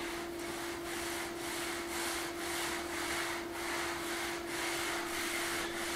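A cloth rag rubbing oil into a wooden worktop board in back-and-forth strokes, about two a second, while wiping on a second coat of oil finish. A steady hum runs underneath.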